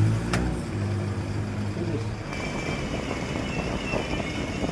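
Hitachi inverter air conditioner compressor humming, then cutting out about two seconds in, with a sharp click near the start. This is the compressor starting only briefly and then shutting off, the fault the unit is showing.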